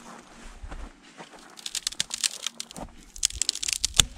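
Dry dead conifer twigs being snapped off a trunk by hand: dense crackling and snapping in two bursts, about one and a half and three seconds in.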